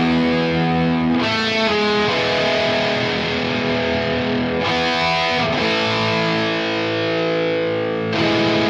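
Background rock music: distorted electric guitar holding sustained chords that change a few times.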